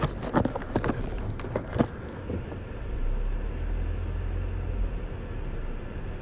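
A string of clicks and knocks from the phone being handled and set in place, lasting about the first two seconds, then a steady low rumble of a car idling, heard from inside the cabin.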